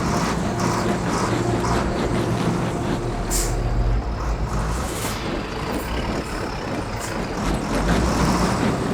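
Heavy diesel truck engines working under load as the wrecker begins pulling the tanker up the grade, a steady low drone that turns rougher about four seconds in, with a brief hiss of air-brake air a little after three seconds.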